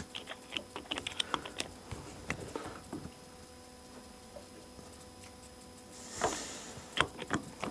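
Quick light clicks and taps of a hand screwdriver and small metal parts being handled at a carburetor screw, a fast run of them for the first three seconds, then a rustle and a few sharper clicks near the end.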